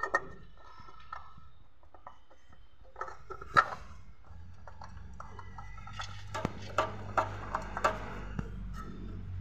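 Scattered sharp clicks and knocks of hands and metal parts being handled at a car's oil filter under the engine, loudest in a cluster past the middle. A low steady hum comes in about halfway through.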